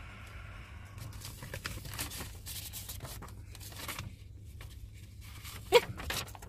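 Paper rustling and tearing in a run of short irregular strokes as the COVID test results are opened.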